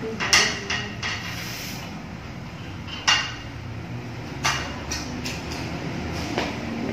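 Scattered sharp clicks and clatters of small objects being handled and set down, about half a dozen in all. The loudest come just after the start and about three seconds in, over a steady low room hum.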